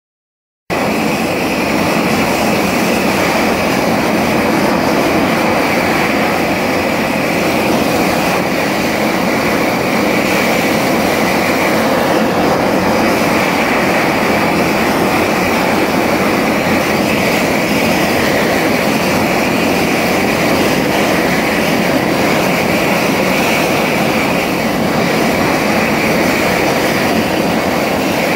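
Silence for under a second, then a high-temperature gas torch burner firing steadily into a masonry-like block, a loud, even rushing of flame that holds unchanged.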